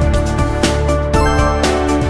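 Background music with a beat, held notes and a steady bass line.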